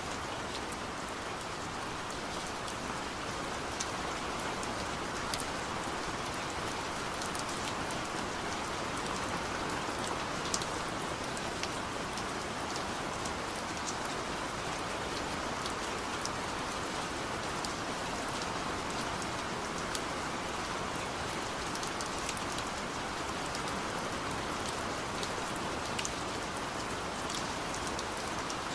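Steady rain falling, an even hiss with scattered individual drops ticking sharply on a surface.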